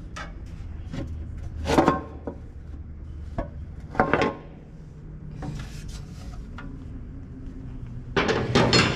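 Metal knocks and scraping as the valve cover of a Maybach six-cylinder engine is worked loose and lifted off. The handling comes in a few short bouts, about two seconds in and about four seconds in, with the longest clatter near the end.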